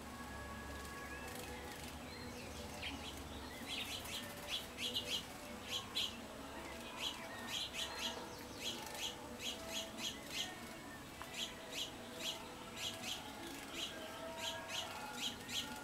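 Small wild songbirds chirping: short, high chirps repeated one or two a second, starting about four seconds in, over a faint mix of other bird calls.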